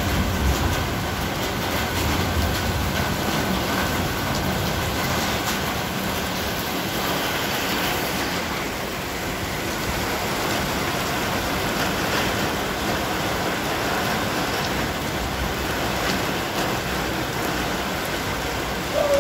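Heavy rain pouring steadily onto a street, with cars' tyres swishing through standing water.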